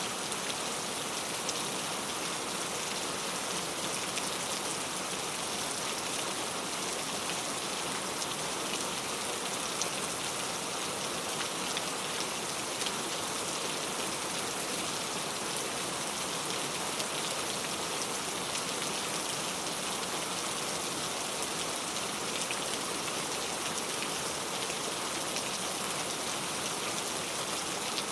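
Steady rain falling: an even hiss with many small drop ticks.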